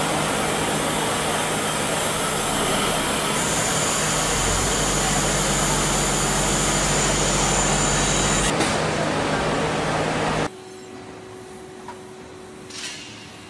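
CNC lathe turning a brass fitting: a loud, steady machining noise with a thin high whine and a low hum. A deeper rumble joins for a few seconds midway. The noise cuts off suddenly about ten seconds in, leaving a faint background.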